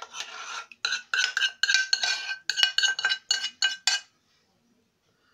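A spoon scraping and knocking against a pan in a quick run of strokes, about four a second, as thick flour-and-tomato gravy is scraped out of the tilted pan into the pan of meatballs. The pan rings with each stroke, and the scraping stops about four seconds in.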